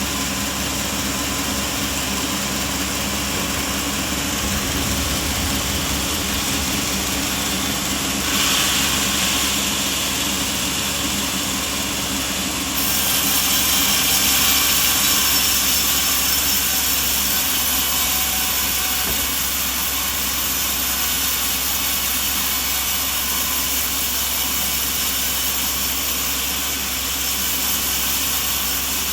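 Sawmill machinery running steadily with a low motor hum. A louder hiss comes in about eight seconds in and grows again around thirteen seconds.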